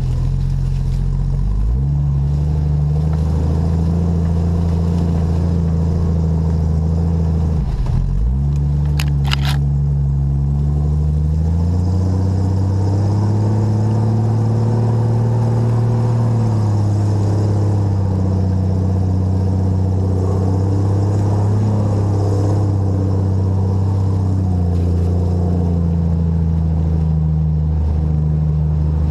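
Engine of a 4x4 truck running under load as it crawls slowly off-road, its pitch rising and falling with the throttle. A couple of sharp clicks about nine seconds in.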